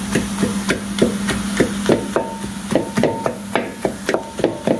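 A masher pounding boiled potatoes into masala in an aluminium pot, with quick, even thuds about three a second. A steady low hum runs underneath.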